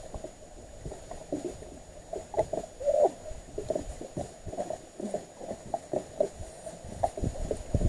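Lake water lapping against an aluminium boat hull in small, irregular slaps.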